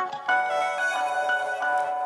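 Background music: a light melodic tune of ringing pitched notes struck one after another.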